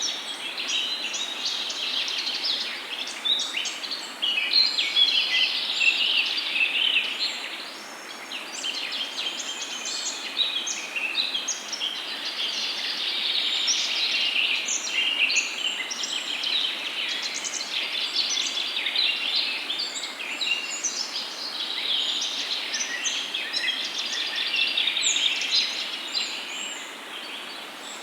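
Many songbirds singing at once: a dense chorus of overlapping chirps and trills, dipping briefly about eight seconds in and again near the end.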